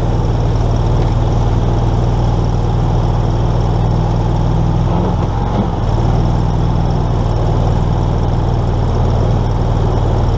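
Mud motor on a duck boat running steadily under way, a constant low engine drone over the rush of water and spray.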